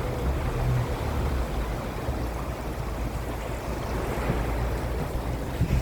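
Vehicle driving along a sand beach: a steady low engine drone under an even rush of tyre and wind noise.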